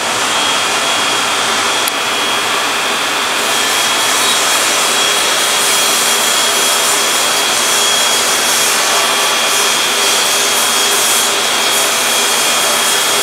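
Powder coating booth in operation: the steady rush of the booth's extraction fan and the compressed-air powder spray gun, with a thin, steady high whine over it.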